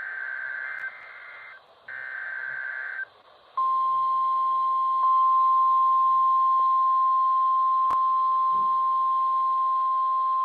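The last two bursts of an Emergency Alert System SAME header, buzzy two-tone digital data. About three and a half seconds in, the NOAA Weather Radio warning alarm tone starts: one steady, unwavering pitch that marks the start of a severe thunderstorm warning. It sounds thin, as heard over a weather radio.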